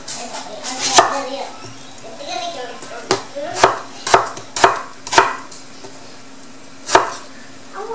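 Knife chopping peeled winter melon (wax gourd) on a wooden cutting board, about seven sharp knocks of the blade on the board. One comes about a second in, then a run of five about half a second apart, then a last one near the end.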